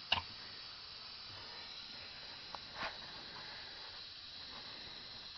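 Mostly a steady background hiss, with a couple of light clicks just after the start and a small tick and a soft knock a little before the middle, from hands and tools working at the automatic transmission's filter.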